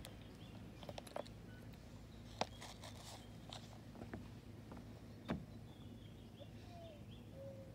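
Footsteps on wooden deck stairs: a scattering of faint, irregular knocks, the sharpest about two and a half seconds and five seconds in.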